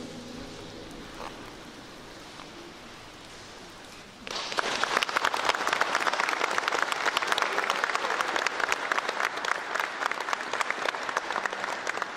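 Brief hush after the choir's final chord in a large cave, then applause breaks out about four seconds in and keeps going as dense, fast clapping.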